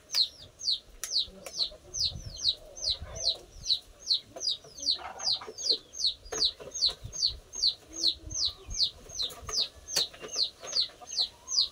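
A chick peeping over and over, a loud, high, falling peep about three times a second, with occasional light clinks of dishes being washed.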